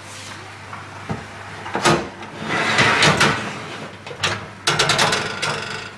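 Bosch oven door being opened and the wire grill rack of hot fish slid out on its runners. A few metal clacks, a scraping slide about halfway through, and a quick run of rattling clicks near the end.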